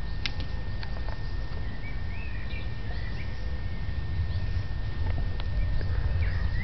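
Outdoor ambience: a steady low rumble on the microphone, with faint bird chirps about two seconds in and again near the end.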